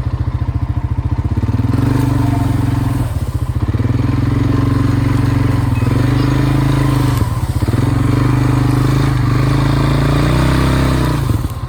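Four-wheeler (ATV) engine revving under load while dragging a heavy tree by a chain. It goes from an idle to a steady high note, eases off briefly twice, and drops back to idle near the end as the tree hangs up.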